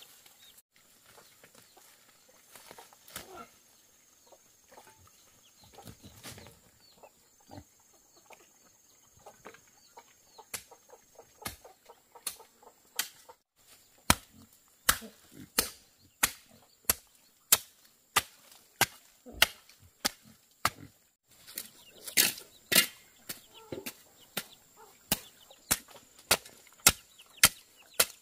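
Chickens clucking, then from about halfway a run of sharp chopping strokes, about two a second.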